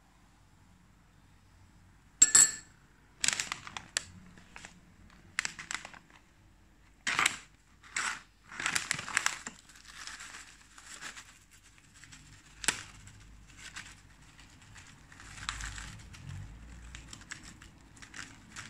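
Plastic packet of seasoned seaweed crinkling in irregular bursts as it is handled, with dry seaweed sheets crackling as they are crushed and crumbled. It starts about two seconds in, with a single sharp click about two-thirds of the way through.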